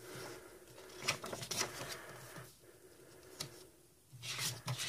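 Pages of a stiff photobook being turned by hand: soft paper swishes and rustles, loudest about a second in and again near the end.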